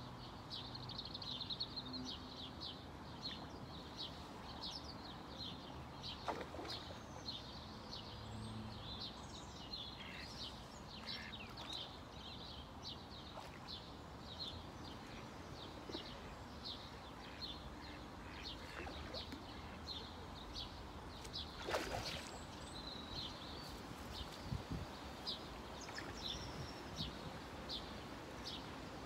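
Small birds chirping and singing continuously in quick high notes, over a steady background hiss of open-air ambience. A single sharp click about 22 seconds in.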